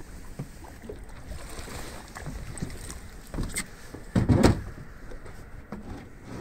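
Water slapping against a small boat's hull, with wind on the microphone and a few faint clicks. About four and a half seconds in there is one brief, louder knock.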